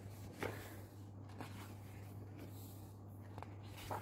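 Glossy photobook pages being turned by hand: a few soft paper rustles and flaps, about half a second in, around a second and a half, and again near the end, over a faint steady hum.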